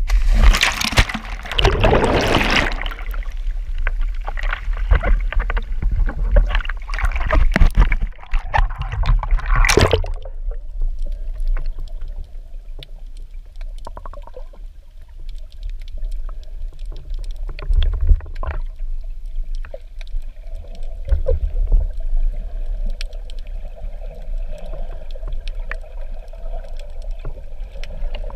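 Splashing and bubbling as a snorkeler and his action camera go into the sea, loud and busy for the first ten seconds or so. Then the muffled sound of underwater, with a steady low rumble, a faint steady hum and occasional bubbles.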